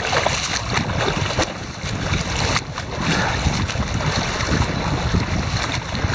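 Lake water sloshing and lapping around a camera held at the surface, with the irregular splashes of front-crawl swimmers' arm strokes passing close by, and wind rumbling on the microphone.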